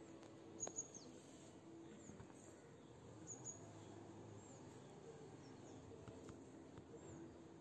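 Near silence: a faint outdoor background with a few brief, high, downward-gliding bird chirps scattered through it, and a couple of soft clicks under a second in.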